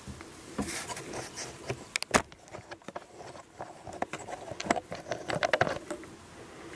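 Handheld camera handling and movement noise: scattered clicks and knocks with light rustling, the sharpest knock about two seconds in and a busier patch of clicks from about four to six seconds.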